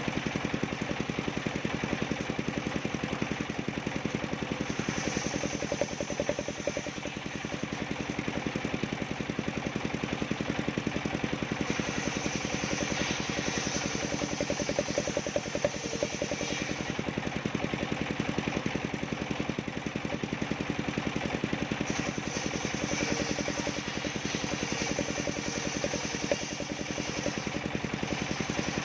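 Homemade engine-driven circular saw running with a steady, evenly pulsing engine note, its blade cutting through bendo wood in three stretches of several seconds each.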